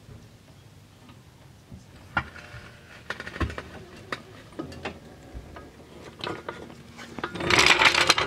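Arcan floor jack being worked under a car: scattered metallic clicks and knocks as the car is let down onto wooden blocks. Near the end comes a louder scraping rattle as the jack is pulled out across the concrete.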